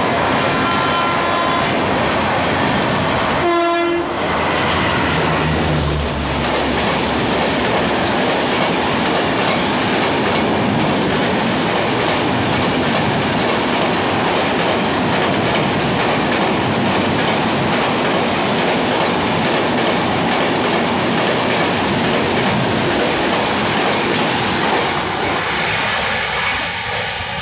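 Express passenger train running through a station at speed close by: a loud, steady rush and rattle of wheels over the track. A short horn blast sounds about four seconds in.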